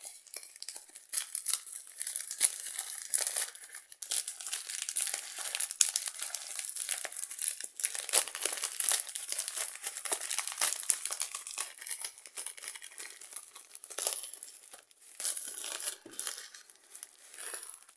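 Parcel packaging being torn open and crinkled by hand: a continuous crackling rustle with short pauses.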